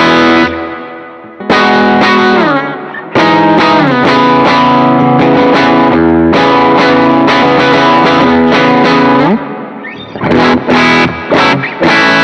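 Electric guitar through an AC30 amp model on a Tonex One pedal, with a Superbolt overdrive stacked on boosts for a heavily driven, distorted tone. Long ringing chords with a few bends give way to short, choppy chord stabs in the last couple of seconds.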